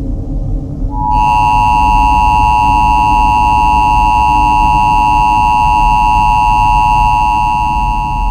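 Emergency Alert System attention signal: a loud, steady two-tone electronic tone that starts about a second in and holds. A low rumbling drone runs underneath.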